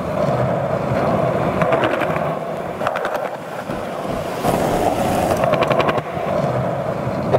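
Skateboard wheels rolling over pavement: a steady rolling rumble with short runs of rapid clicks, about three seconds in and again around four and a half seconds in.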